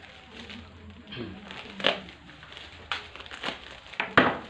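Plastic parcel wrapping crinkling and tearing in short bursts as it is pulled open by hand, the loudest rip near the end.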